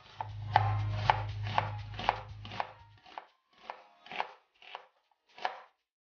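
Kitchen knife slicing an onion on a plastic cutting board: about ten sharp chops, roughly two a second, spacing out and getting quieter after about three seconds. A low hum sits under the first half and stops about three seconds in.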